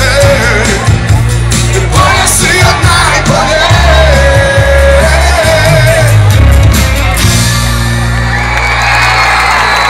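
Live band with a lead singer playing loud through a concert sound system, with the crowd shouting along. The drum beat stops about seven seconds in, leaving held chords and voices.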